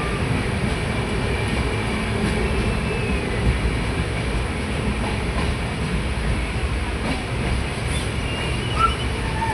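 Train running along the track: a steady rumbling noise with faint thin squeals from the wheels on the rails, and a brief sharper sound near the end.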